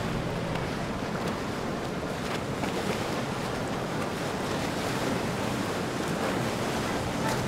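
Steady wash of water and a boat engine's low hum, with wind noise on the microphone.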